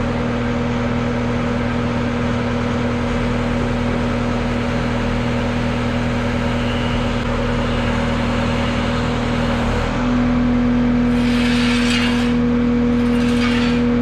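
Skid steer engine running steadily with a strong whine. About ten seconds in it gets a little louder and higher, and two short bursts of hiss follow near the end.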